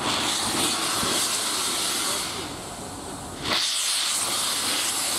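Steam locomotive releasing steam with a loud, steady hiss. The hiss eases off a little past halfway, then comes back as loud about a second later.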